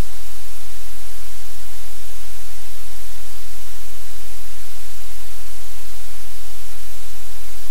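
Loud, steady static hiss, even across all pitches, with a steady low hum underneath; it does not change.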